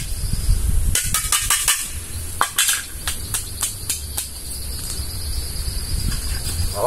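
Steady high-pitched insect buzzing, joined about four seconds in by a second, lower insect drone, with a string of sharp taps in the first half.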